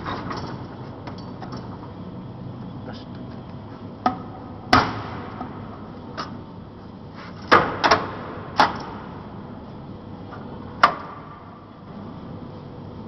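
Metal clanking during work on a sheet-metal pipe bending machine: about seven sharp, irregular knocks, each with a brief metallic ring, over a steady low hum.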